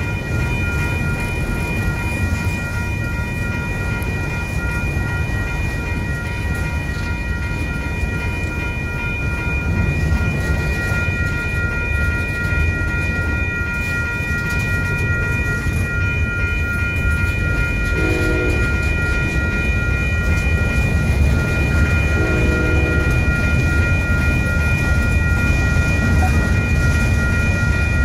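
Freight train rolling past close by: autorack cars running over the rails with a steady low rumble. The grade-crossing signal bell rings throughout. A train horn sounds faintly in a few short blasts in the second half.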